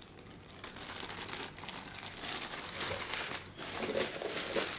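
Clear plastic packaging bags crinkling in irregular crackles as bagged cables and a GPS antenna are handled.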